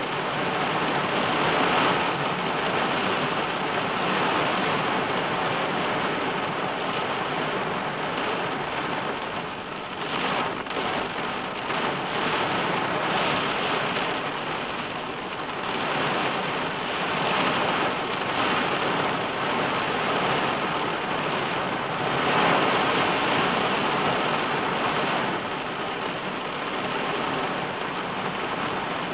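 Heavy rain drumming on a car's roof and windscreen, heard from inside the car, a dense steady hiss that swells and eases every few seconds.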